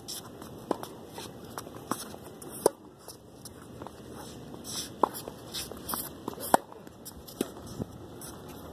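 Tennis rally on a hard court: sharp pops of the ball off racket strings and its bounces, one every second or two, with fainter scuffs of shoes on the court between.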